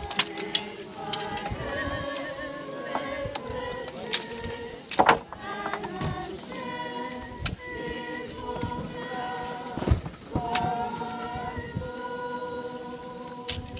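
A crowd of mourners singing together at the graveside, many voices holding long notes. Sharp knocks and scrapes from shovels and rubble at the grave cut in several times, the loudest about 4, 5 and 10 seconds in.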